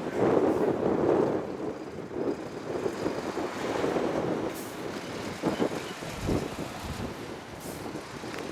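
Kanto Railway KiHa 2300 diesel railcar running on the line, its engine and wheel noise fading steadily as the train moves off.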